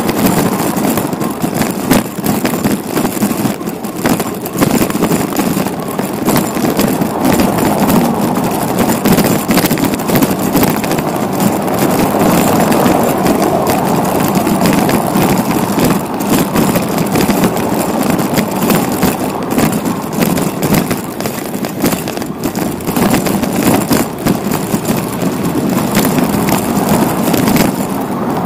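Steady wind and road noise from a bicycle ride, broken by frequent small knocks.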